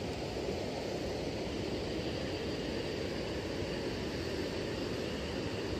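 Steady outdoor rushing noise with no distinct events and no rhythm.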